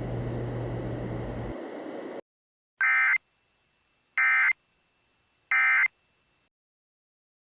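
A steady noise bed with a low hum cuts off about two seconds in. Then come three short, identical bursts of Emergency Alert System data tones, about a second and a half apart: the End of Message signal that closes the alert.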